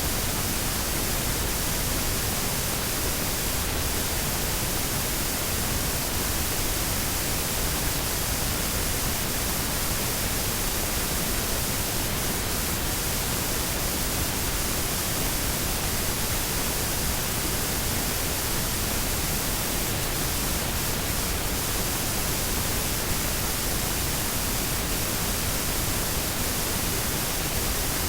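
Steady, unchanging hiss-like noise spread evenly from low to high pitch, with no rhythm or change throughout.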